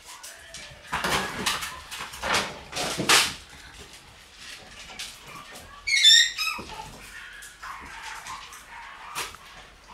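Shiba Inu puppies at play: a run of short scuffling noises in the first few seconds, then a puppy gives a high-pitched yelp about six seconds in.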